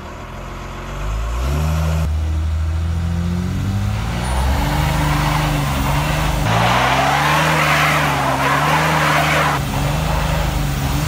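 Ford Super Duty pickup's swapped-in 12-valve Cummins diesel engine revving up and held at high revs, wavering up and down. From about a third of the way in, the spinning rear tyres add a loud screeching hiss of a burnout, which drops away briefly near the end.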